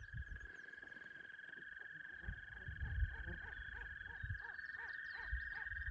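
Birds calling by a river. A steady, finely pulsed high trill runs throughout, with a series of short repeated calls about twice a second from about two seconds in and scattered high chirps. Low rumbles come and go.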